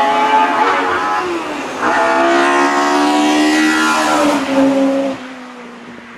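Hill-climb race car's engine revving hard as it accelerates past, with a gear change about two seconds in and the pitch climbing again afterwards; the sound falls away after about five seconds as the car moves off.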